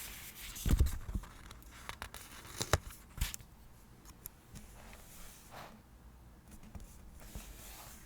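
Paper and stationery handled on a desk during diary decorating: rustling and crinkling, with a few sharp taps and knocks in the first three or so seconds and softer rustles later.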